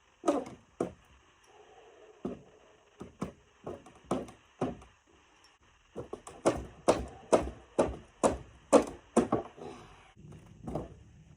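Hammer striking nails in the old boards of a barn door, being knocked flat. Single blows, widely spaced at first, then a quicker run of about two a second from about six seconds in.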